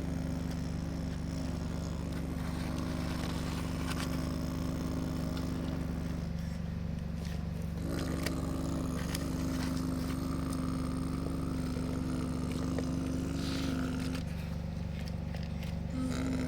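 Excavator running and working: a steady low mechanical hum with a higher whine on top that cuts out for a second or two twice, about six seconds in and again near the end.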